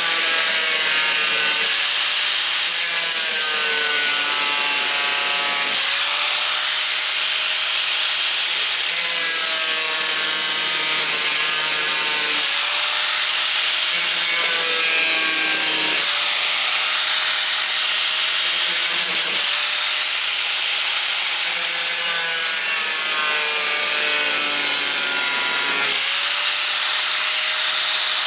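A 4.5-inch angle grinder with a cutoff wheel cutting through the truck's sheet metal, its whine dipping and climbing again every few seconds as the wheel bites in and eases off.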